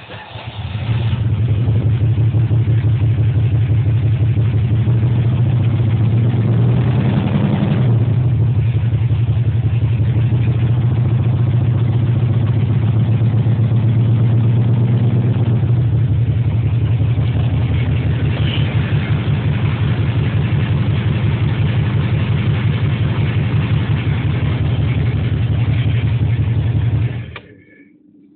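Jaguar XJS V12 engine running rough and uneven; the owner calls it terrible. It swells briefly about seven seconds in and cuts off near the end. It is running on only four of its twelve cylinders, which the owner traces to a failed injector wiring harness with its insulation worn away.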